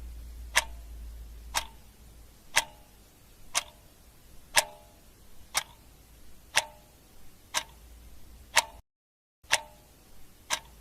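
Clock-tick countdown timer sound effect ticking steadily about once a second. The audio cuts out completely for about half a second near the end.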